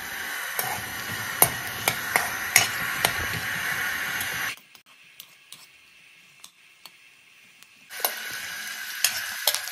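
Onions sizzling as they fry in ghee in a pan, with a spatula clicking and scraping against the pan as they are stirred. The sizzle drops away suddenly about four and a half seconds in and comes back about three seconds later.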